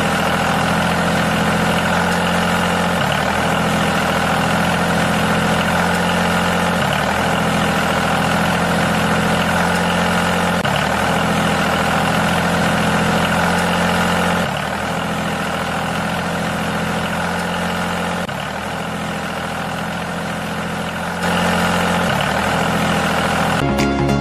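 Tractor engine idling sound, a steady low running note with a slight rise in pitch that repeats about every four seconds, like a looped sound effect.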